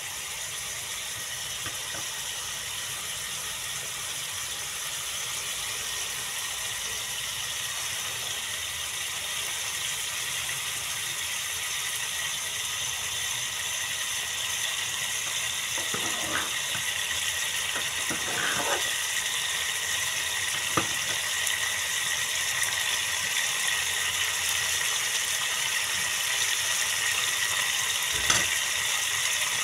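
Goat intestines simmering and sizzling in oily liquid in a pan on a lit burner: a steady crackling hiss that grows slowly louder, with a few brief soft knocks around the middle and near the end.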